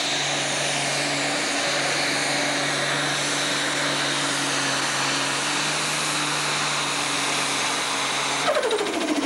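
Super stock diesel pulling tractor running flat out under load as it drags the weight sled, a steady high-revving engine note with a heavy rushing hiss. About eight and a half seconds in the steady note breaks off and the revs fall away, with a high whine sliding down as the throttle comes off at the end of the pull.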